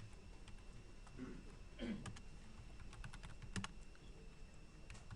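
Typing on a computer keyboard: a scattering of faint keystrokes, bunched together in the middle.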